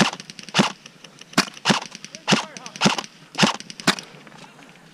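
Airsoft rifle firing single shots, about eight sharp cracks at uneven intervals over four seconds, then stopping.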